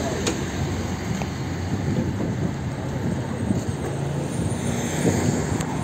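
City street traffic: vehicle engines humming low and tyres on the road in a steady wash of noise.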